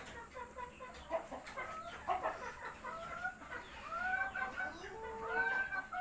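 Chickens clucking and calling softly: many short notes that rise and fall, a little louder in the second half.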